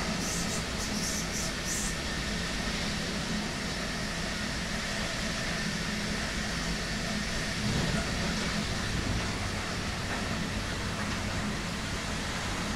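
Train running noise heard from inside the passenger coach coupled behind a DB Class 101 electric locomotive. Faint steady tones from its Adtranz MICAS-S GTO inverter traction drive sit over the steady rumble. A few short high hisses come in the first two seconds.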